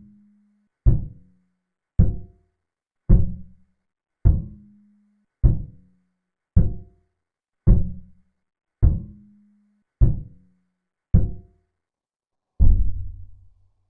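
A synthesized percussive hit, made from scratch without any real recording, slowed to a tenth of its speed so that it sounds like a bass drum: a hit about once a second, each with a sharp attack that dies away quickly. Near the end the hits turn deeper and ring longer as the playback slows to a twentieth of the speed.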